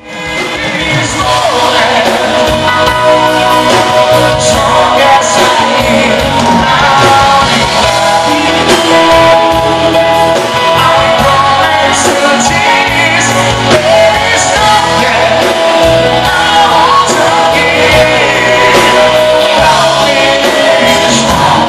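A live band playing, with singers over electric guitars; the music fades up in the first second.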